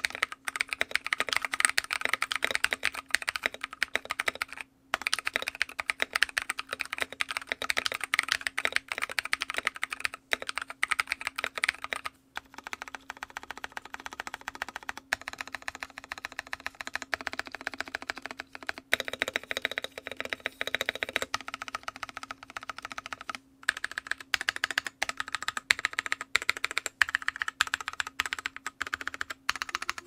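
Fast typing on a Drop Carina mechanical keyboard with AEBoards Naevy V1.5 tactile switches, NovelKeys plate-mount stabilizers and Ducky x MK Frozen Llama keycaps: a dense, rapid stream of keystrokes with a few brief pauses.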